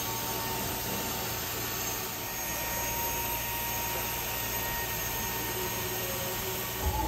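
Carpet-cleaning extraction wand pulled across the carpet, its suction drawing air and water through the head with a steady hiss and a faint steady whine.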